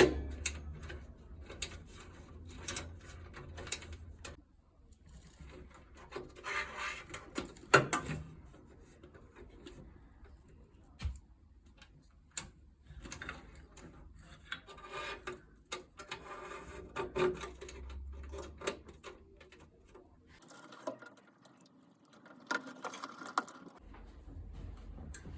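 Hands working on furnace parts: irregular clicks, knocks and short scraping and rubbing sounds, with a low hum under them that drops out briefly near the end.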